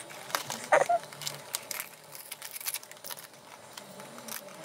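Light clicks and crackles of a plastic-wrapped toy package being handled, as a pocket knife picks at its sealing tape.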